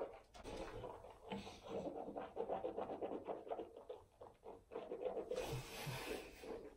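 Mouthwash swished around a closed mouth: a faint, quick, irregular wet sloshing. Near the end, a hissier rubbing as hands run through hair.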